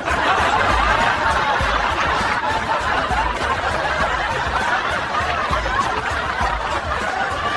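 Many people laughing at once, a dense wash of laughter that holds steady, over background music with a regular low beat.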